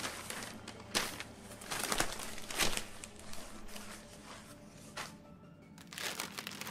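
Newspaper pages rustling and crinkling as they are handled and turned, in a string of separate crackles, over quiet background music.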